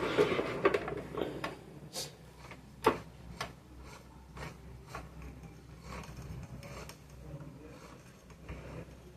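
Scattered sharp clicks and light rubbing from metal parts of an Elgin sewing machine being handled as it is greased, with the loudest click about three seconds in.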